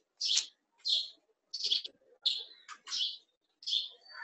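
A small bird chirping over and over, short sharp chirps about twice a second, heard through a video-call microphone.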